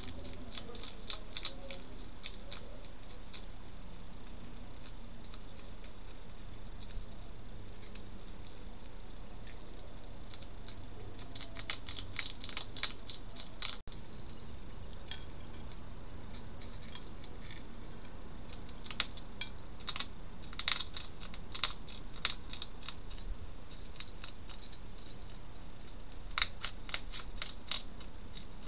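Hedgehog crunching food from a dish: quick sharp clicks in three bursts, against a steady background hiss.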